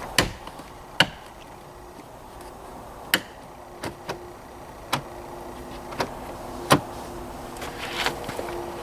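Plastic interior door trim of a minivan being pressed and tapped into place: about nine sharp clicks and knocks at irregular intervals.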